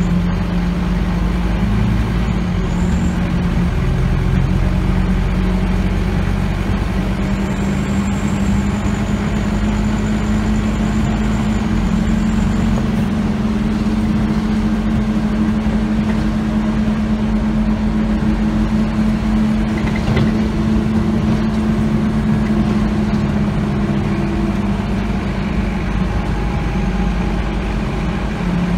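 Scania OmniCity single-decker bus heard from inside the passenger saloon: a steady low diesel engine drone over road noise. There is one sharp knock about twenty seconds in.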